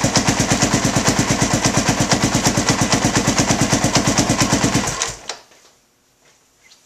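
Kawasaki KLR 650's single-cylinder four-stroke engine idling with a steady, rapid thumping, freshly filled with oil and run to circulate it before the level is checked. It is switched off about five seconds in and falls away.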